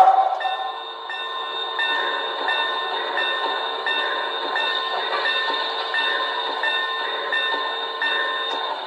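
Model train locomotive running, with steady tones and a beat that repeats about every two-thirds of a second. A whistle fades out in the first half-second.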